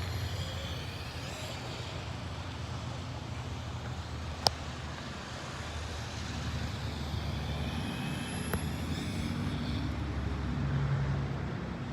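Electric motor of a Traxxas Slash 4x4 RC truck whining up and down in pitch as it is driven in short bursts of part throttle, over a steady low hum, with one sharp click about four seconds in.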